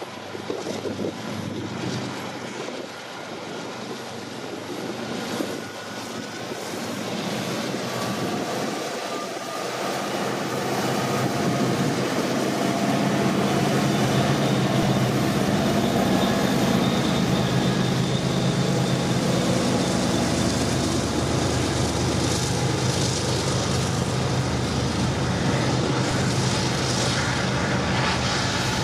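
Diesel locomotive engine running, growing louder about ten seconds in and then holding a steady, heavy drone, with wind on the microphone.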